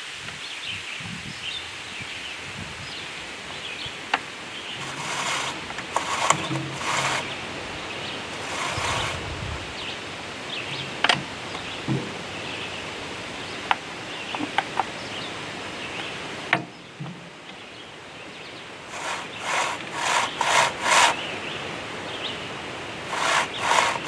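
Chain of a Husqvarna 445 chainsaw being worked around its new bar by hand while the tension is adjusted: short rasping strokes of metal links dragging over the bar, in two spells, about five seconds in and again near the end, with a few sharp clicks.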